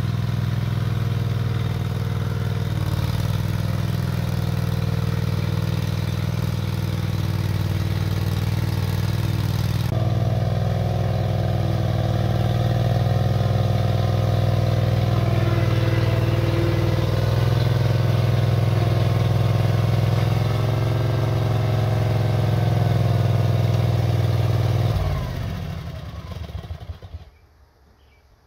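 Case 1816B skid steer's Honda 620 V-twin engine running at a steady speed as the machine drives. Near the end the engine is shut off and dies away to a stop.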